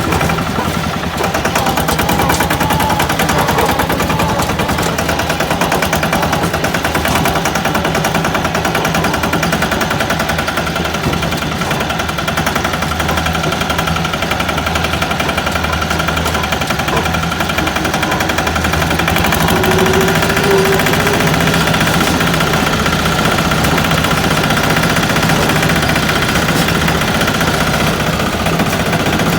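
Single-cylinder engine of a 2021 Yağmur patpat running steadily, its firing pulses coming in a rapid, even stream of pops.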